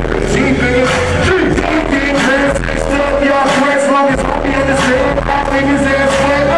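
Live hip-hop performance through a concert PA: a male rapper's vocals over a loud beat with held synth notes and steady deep bass.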